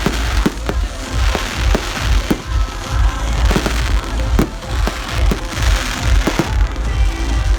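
Fireworks display going off: rapid, irregular bangs and booms over a continuous low rumble, with music playing alongside.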